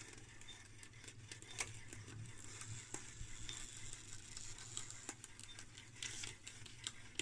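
Faint running of a Brüel & Kjær type 2309 two-channel level recorder: light scratching and small ticks from its pens and paper drive as it plots on the moving paper chart, over a low steady hum. About six seconds in, a short rustle as the printed paper chart is handled.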